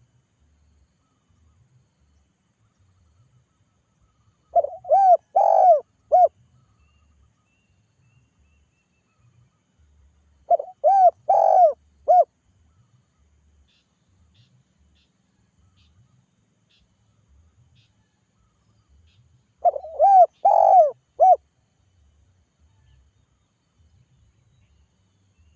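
Spotted dove (tekukur) cooing three times, about six and nine seconds apart. Each phrase is a run of about four coos with a longer third note. This is the dove's calling song, used as a lure call that other doves answer.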